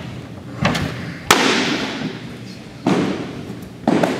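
Sharp pops of baseballs smacking into catchers' mitts, four in a few seconds with the loudest about a second and a half in, each ringing on in the echo of a large gymnasium.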